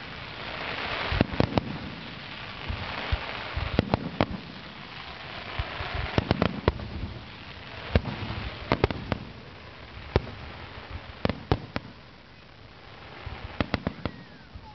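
Fireworks display: aerial shells bursting in an irregular series of sharp bangs, several coming in quick clusters.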